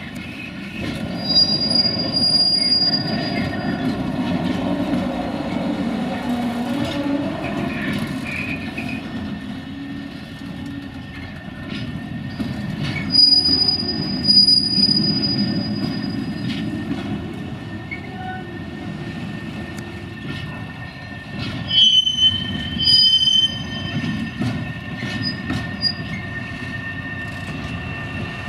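Hybrid shunting locomotive and empty container flat wagons rolling slowly along yard track: a steady low rumble with high-pitched wheel squeals near the start, around the middle and again later on.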